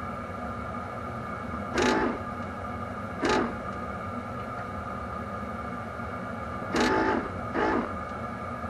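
Steady mechanical hum, broken by four brief louder sounds: one about two seconds in, one a little after three seconds, and two close together near the end.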